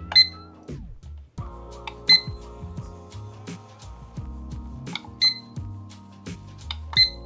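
Four short, high beeps from an IKEA Plugget digital alarm clock as its setting buttons are pressed, spaced irregularly over about seven seconds, over upbeat background music.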